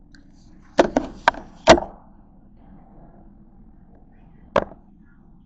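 Sharp clacks of a plastic fork and a takeout clamshell container knocking on the table close to the microphone: four in quick succession about a second in, and one more near the end.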